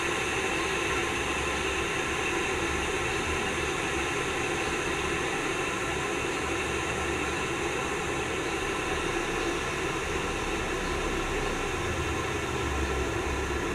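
Scarlett cordless electric jug kettle heating water: a steady rushing hiss as the water works up towards the boil.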